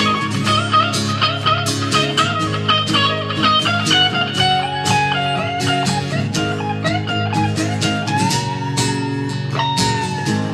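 An acoustic guitar strumming chords under an electric guitar playing a single-note lead line, with bent notes and a long held note near the end. Instrumental, no singing.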